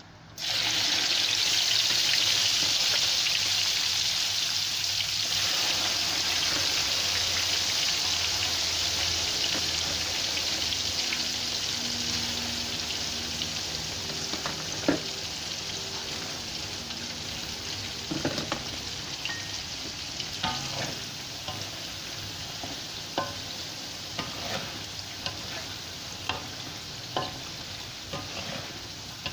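Peeled raw peanuts frying in hot oil in a metal wok. The sizzle sets in suddenly as they go in and slowly dies down. Later a spatula stirs them, with scattered knocks and scrapes against the wok that grow more frequent toward the end.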